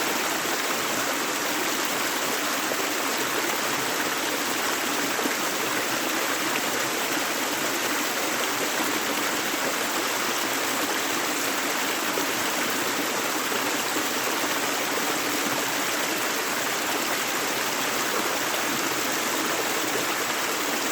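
Gentle river flowing steadily, an even rush of running water with no breaks or changes.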